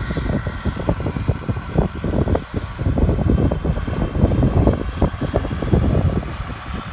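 A New Holland tractor engine droning steadily under load as it pulls a tillage implement across the field. An uneven low rumble, wind buffeting the phone's microphone, is the loudest part.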